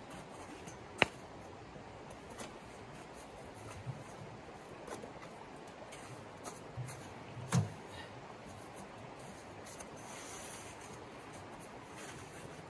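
Small handling knocks and clicks from camp gear: one sharp click about a second in, then a few softer knocks and low thumps, the loudest a little past the middle. Under them runs a steady hiss of a shallow creek flowing.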